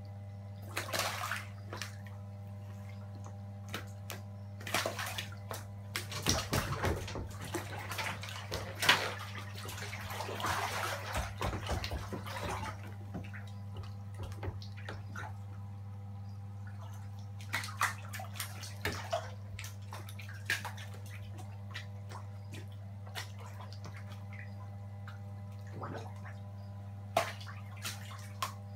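Cuvier's dwarf caiman splashing in its tank water as it snatches food from metal feeding tongs, in several irregular bouts. A steady low hum runs underneath.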